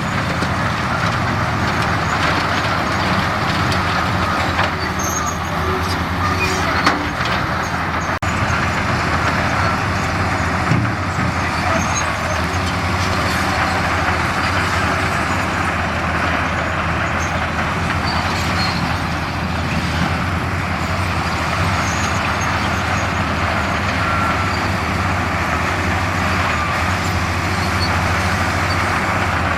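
Heavy diesel earthmoving machinery running steadily under load, with a low engine hum and a constant rumble and clatter. Two short knocks stand out, about 7 and 11 seconds in.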